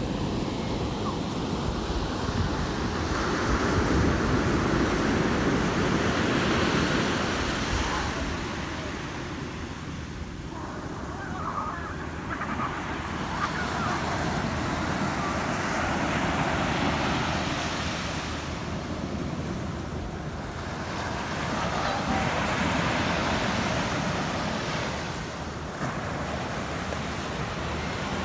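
Ocean surf breaking and washing back on a shore: a steady rushing that swells and eases, with about three big swells roughly nine seconds apart.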